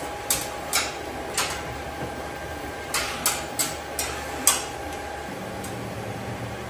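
A steady machine hum with a faint held tone, under about a dozen sharp, irregular clicks and taps from hands working at a drywall ceiling while a bowl is taped up to it.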